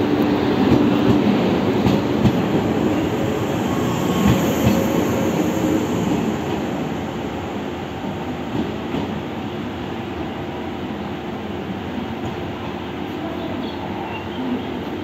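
JR West 381 series electric express train pulling out of a station, the cars rolling past with wheels clicking over rail joints and a brief high wheel squeal about four seconds in. The sound fades from about six seconds in as the panorama-windowed rear car draws away.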